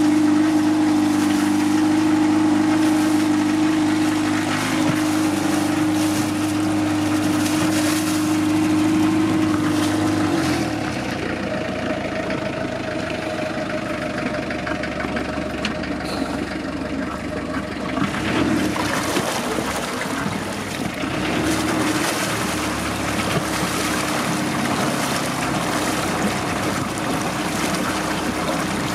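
Wide-beam narrowboat's inboard engine running after a cold start, with its wet exhaust outlet at the stern spitting water and vapour into the canal with a splashing sound. About ten seconds in, the steady engine tone gives way to a rougher, noisier sound.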